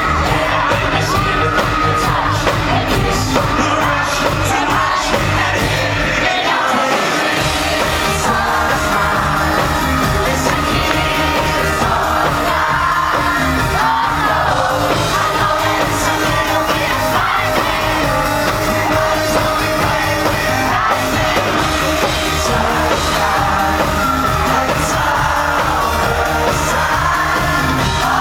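Live pop concert: a boy band singing over loud, full band music, with the crowd yelling along. The bass drops out for a moment about seven seconds in.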